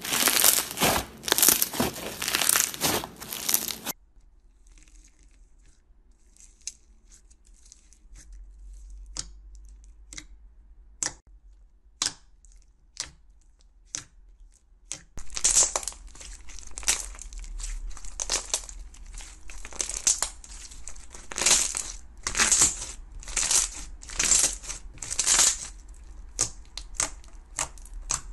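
Hands squeezing and pressing crunchy slime, making crackling, crinkling squishes. The crackling is dense for the first four seconds, then gives way to scattered soft clicks, and in the second half comes back as a run of crackling squishes about once a second.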